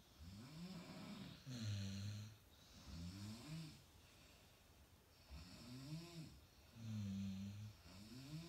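Two sleepers snoring in step. Rising-and-falling snores alternate with louder flat, buzzy ones, the pattern repeating about every five seconds with short quiet gaps. The loudest flat snores come about two seconds in and again near the end.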